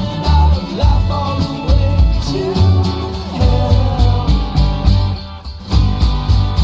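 Background music: a country-style song with guitar over a steady, pulsing bass beat.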